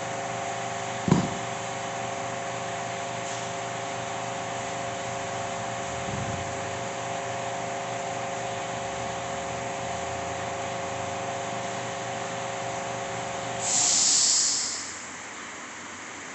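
A steady machine hum with a few fixed tones, with one sharp knock about a second in. Near the end the hum stops and a loud hiss of about a second sounds, after which only a quieter noise remains.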